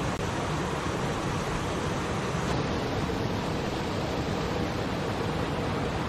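Small waterfall cascading over rocks into a river: a steady, unbroken rush of falling and churning water.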